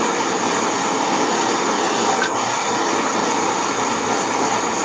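Handheld gas torch burning with a steady hiss, its flame heating a small metal sheet topped with solder pieces until the solder flows.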